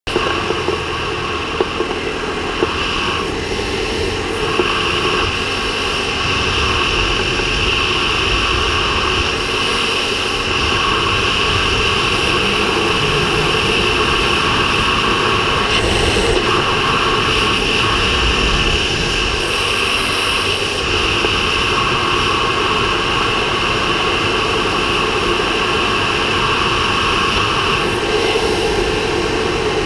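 Ducati Hyperstrada motorcycle riding at a steady cruise: the L-twin engine running under even throttle beneath a steady rush of wind over the bike-mounted camera.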